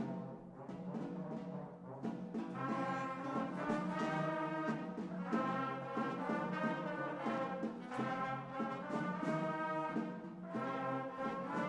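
Young student concert band playing a slow piece: sustained chords from woodwinds and brass, with drum strokes near the start.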